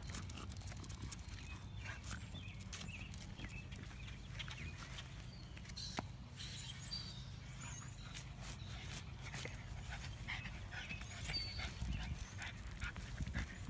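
A dog moving about: many small clicks and a few short high squeaks over a steady low rumble.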